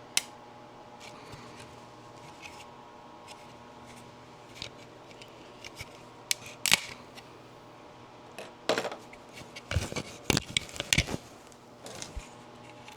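Sharp plastic clicks and snaps of 3D-printed support pieces being pried and broken off a printed helmet part. They are scattered at first, with a loud snap about halfway through and a busier run of clicks and scrapes about two-thirds of the way in.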